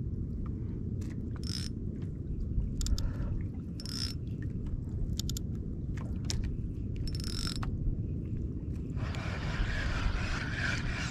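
Shimano FX 2000 spinning reel being handled and cranked: scattered clicks and short rattles, then from about nine seconds a steady whirring as the line is reeled in, over a steady low rumble.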